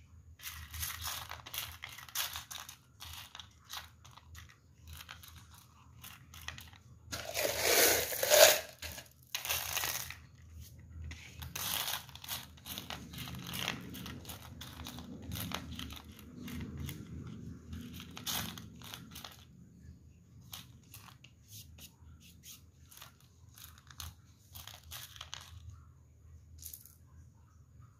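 Small white pebbles clicking and rattling against one another as a hand pushes and spreads them across a flat surface, with a louder spell of clattering about eight seconds in.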